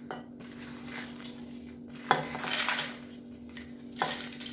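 Clattering and metal clinks as dry-roasted red chillies are added to a mixer-grinder jar, with two sharp clinks about two and four seconds in.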